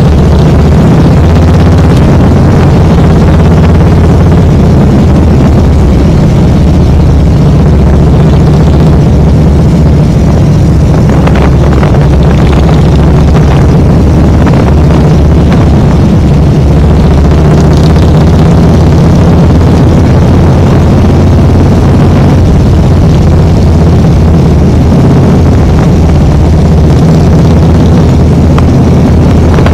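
A motorcycle engine running steadily while the bike rides along, picked up loud and close by a microphone mounted on the bike itself.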